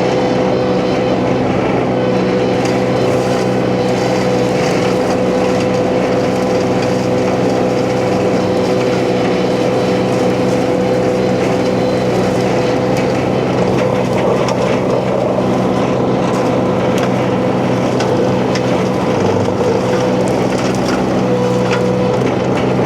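Huayee LHY680 mini skid steer running steadily under load, driving its hydraulic hammer-knife flail mulcher, with a steady whine over the engine and scattered sharp cracks as brush and small trees are shredded.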